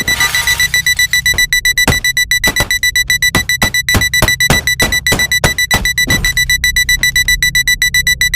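Electronic alarm clock beeping: a high, piercing tone pulsing rapidly, about eight beeps a second, without a break. It sounds over music, with irregular thumps.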